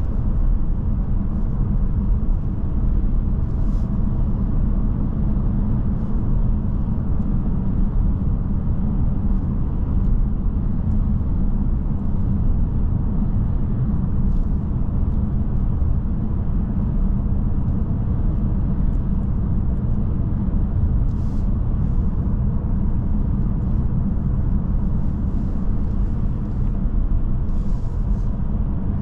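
Inside the cabin of a BMW F10 530d xDrive driving at road speed: a steady low rumble of tyre and road noise, with the 3.0-litre straight-six turbodiesel humming underneath.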